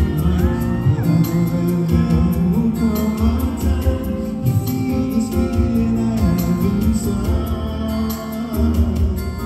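A man singing live into a microphone over band accompaniment with a steady beat, amplified through PA speakers in a hall.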